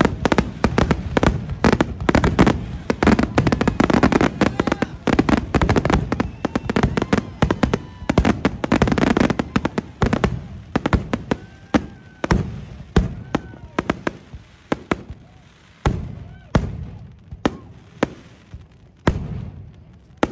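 Aerial fireworks going off: a rapid, dense barrage of bangs and crackle for about the first half, thinning to separate booming reports less than a second apart toward the end.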